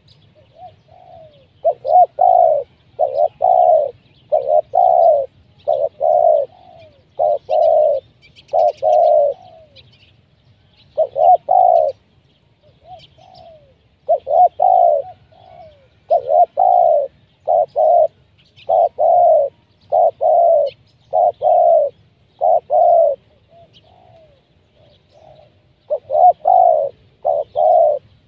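Spotted dove (tekukur) cooing again and again in phrases of several low, hooting notes, with a few short pauses between series. It is a decoy bird calling from the ground to lure wild doves down.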